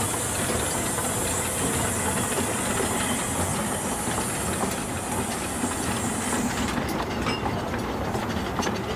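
Steady hiss of steam from a narrow-gauge steam locomotive that cuts off suddenly about two-thirds of the way through, over the low rumble of a 2 ft gauge train on the move. Near the end, sharp clicks of wheels on the rail joints come through.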